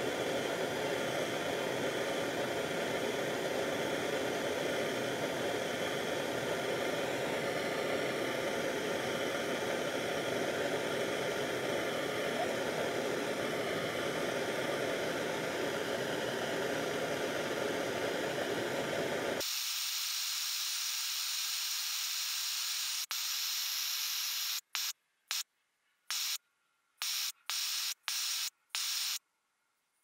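Steady hiss of a torch flame heating a steel knife blade to draw its temper. About two-thirds through, the sound thins to a higher hiss. Near the end it breaks into short bursts with abrupt silent gaps.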